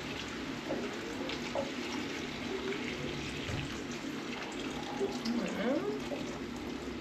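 Crab-cooking stock poured in a steady stream from a saucepan into a wok of simmering liquid, a continuous splashing trickle.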